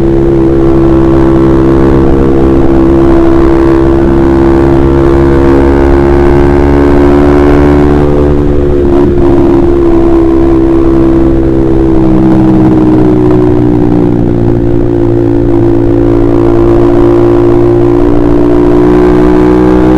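Honda CBR150R's single-cylinder engine running through a KJ Pro Performance aftermarket exhaust, held at fairly steady revs. There is a brief break in the note about nine seconds in, a slight dip in pitch after it, and a slow climb in revs near the end.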